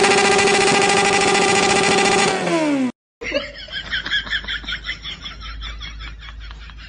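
An engine running steadily at a high, unchanging pitch, then winding down in pitch about two seconds in and cutting off just before three seconds. After a short gap, a quieter fast ticking rhythm of about five strokes a second.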